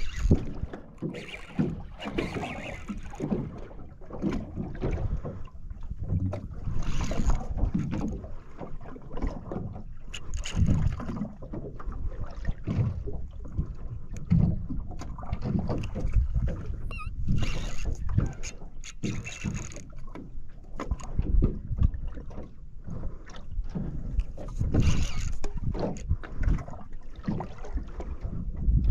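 Water slapping and sloshing irregularly against the hull of a small drifting boat, in uneven surges about a second apart, with wind on the microphone.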